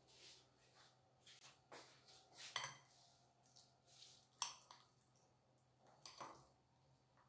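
Metal fork clinking and scraping against a glass bowl while mashing ripe bananas: faint, with a few sharp clinks, the loudest about halfway through.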